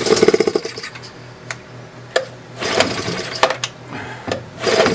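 A choked Yamaha 3 HP outboard being pull-started by its recoil rope, cranked over three times with a fast rattling whirr each pull, without catching.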